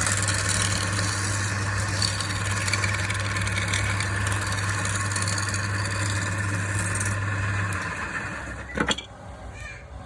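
A woodworking machine's motor running steadily with a constant hum, then cutting out about eight seconds in, followed by a couple of sharp knocks.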